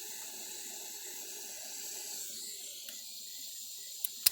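Handheld torch flame hissing steadily while it heats the ends of a self-soldering heat-shrink butt connector to shrink them. Near the end come two sharp clicks, and the hiss stops.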